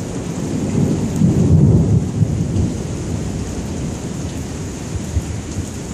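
Thunder from a close lightning strike: a deep rumble that swells about a second in, is loudest around two seconds, then rolls away slowly, over a steady hiss.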